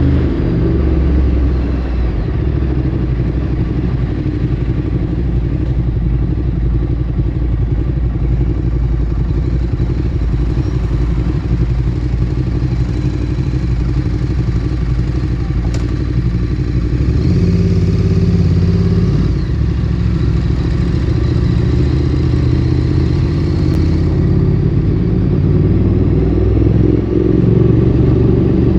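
Ducati Streetfighter 848's V-twin engine through a Termignoni exhaust, running steadily at low revs under way. Its pitch rises briefly about two-thirds of the way through, then rises and falls again near the end.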